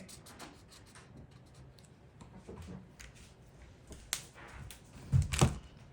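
Felt-tip marker working on paper: a run of short, scratchy strokes and light taps. A louder thump comes about five seconds in.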